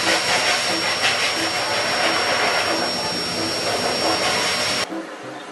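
Pet grooming blow dryer running, a steady rush of air with a constant high whine, that cuts off suddenly about five seconds in.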